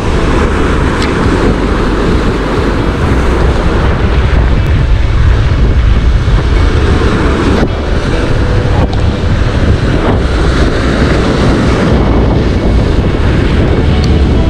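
Surf breaking and washing over a boulder shoreline, with heavy wind buffeting the microphone in a steady low rumble.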